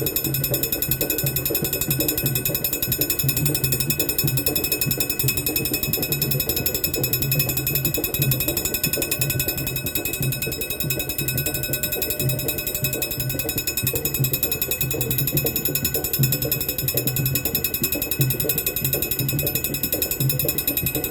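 Saxby electric level-crossing bell ringing continuously with rapid strokes: a steady, fast metallic clatter with fixed ringing tones, the warning that a train is approaching the crossing.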